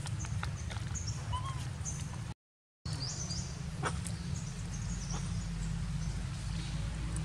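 Young macaques giving short, high squeaks and chirps, with one brief rising-and-falling call, over a steady low rumble. The sound cuts out completely for about half a second a third of the way in.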